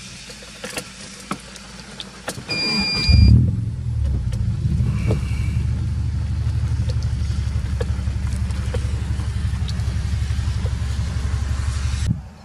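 A few light taps at first, then a car's power window whirs open for about a second. Through the open window comes a loud, steady, low rumble of the car idling, with a fine even pulse, which cuts off abruptly near the end.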